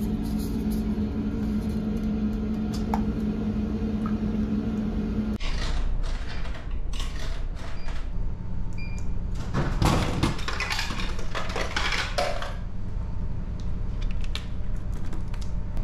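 Drink vending machine dispensing a plastic bottle: rattling and clatter, then a heavier clunk about ten seconds in as the bottle drops into the automatic-door pickup bin. All of it sits over a steady low machine hum.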